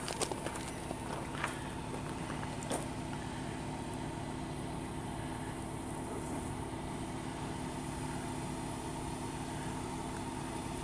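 A motor running steadily, an even idling hum with a few steady tones, with a few light clicks in the first few seconds.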